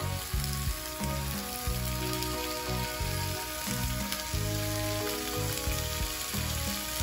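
Sausage pieces sizzling in a hot frying pan as more are laid in, over background music with a low bass line.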